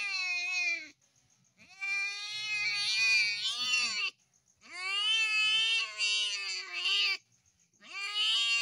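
Young tabby cat yowling in distress while held down for castration: a series of long drawn-out, wavering cries, each two to three seconds long, with short breaks between them.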